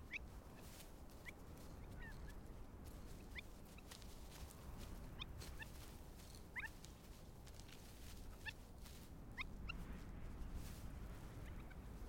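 Faint, short, high peeps from a newly hatched cream-coloured courser chick, scattered irregularly while it is brooded under its parent.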